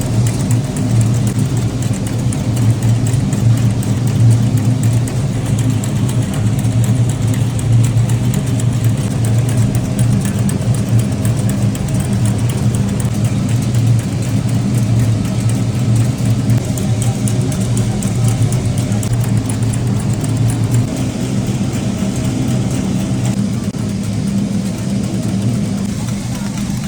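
Factory machinery running with a steady low hum that holds throughout and eases slightly near the end.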